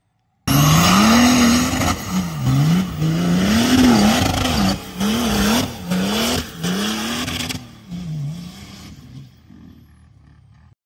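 Nissan Patrol with a swapped-in 400 hp BMW M57 turbo-diesel straight-six, revving hard up and down about six times under wheelspin. It starts suddenly about half a second in, then fades away over the last few seconds as the truck moves off.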